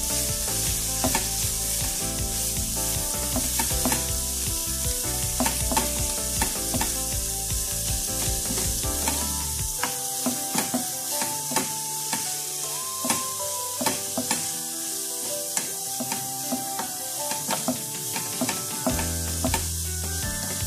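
Shredded cabbage, onion and grated carrot sizzling in a frying pan while being stirred and tossed with a wooden spatula. The spatula scrapes and taps against the pan many times over the steady sizzle.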